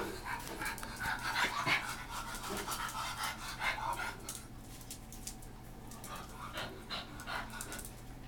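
Dogs panting in quick short breaths, with light clicks and scuffles as they move about on a hard tile floor; busiest in the first half, sparser later.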